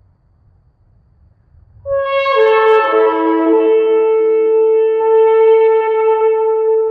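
A long twisted shofar sounds one long blast starting about two seconds in: a brief higher note that drops to a lower pitch, then held steady.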